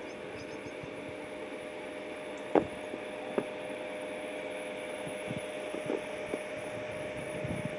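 Steady low hiss with a faint constant hum, broken by a few soft, irregular knocks; the sharpest comes about two and a half seconds in and another a second later.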